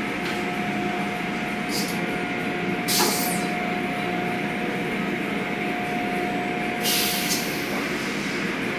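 Automatic tunnel car wash running: a steady rush of high-pressure water spray and machinery, with a steady whine that stops near the end. Short bursts of hiss come about two, three and seven seconds in.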